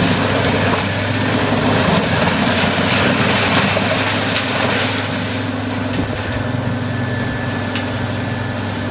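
Peterson 4300B wood chipper running and chipping wood: a steady heavy engine drone under a dense rush of chipping noise, with a few scattered knocks. It drops a little in level about five seconds in.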